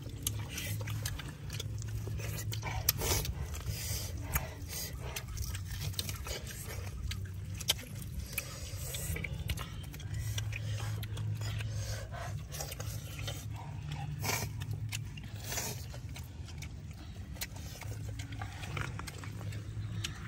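Close-up eating sounds: wet chewing, lip smacking and grilled pork leg skin and meat being torn apart by hand, heard as many short, scattered clicks over a low, steady hum.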